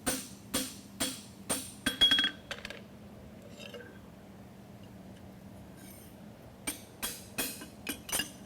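Steel horseshoe being scrubbed with a wire brush in quick strokes, about two a second, to knock loose scale and material off the finished shoe. A short metallic clink rings out about two seconds in. The strokes pause for several seconds in the middle and resume near the end.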